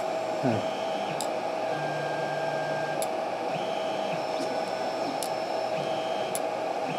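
Anet 3D printer running BLTouch auto bed levelling (G29): a steady fan hum, stepper motors whining in short moves between probe points, and four sharp clicks as the probe taps the bed.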